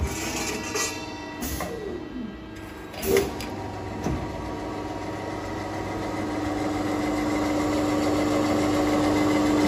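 Automatic HSS circular-saw pipe-cutting machine at work: a few knocks from the clamps and feed in the first seconds, then the saw runs with a steady hum that grows louder as the blade cuts through a bundle of square steel tubes.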